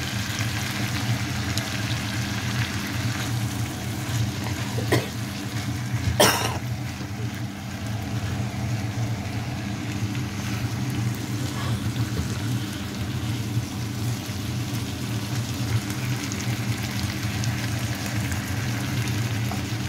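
Potatoes and freshly added spinach sizzling in a frying pan over a steady low hum, with a sharp knock about six seconds in.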